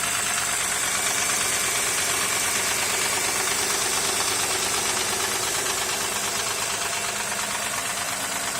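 Honda J35Z 3.5-litre V6 running steadily at idle with an extraneous knock mixed into its sound. The owner cannot place the knock beyond it seeming to come from somewhere at the back of the engine.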